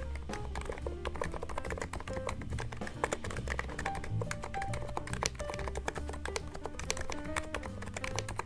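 Typing on a NIZ Plum87 electro-capacitive keyboard: a fast, uneven run of keystroke clicks over background music with a melody and bass line.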